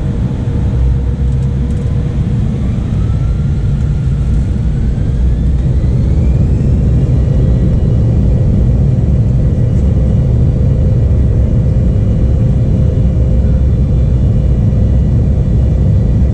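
Embraer E175 jet engines spooling up, heard from inside the cabin over a heavy low rumble. A whine rises in pitch over a few seconds and then holds steady as the engines reach takeoff thrust.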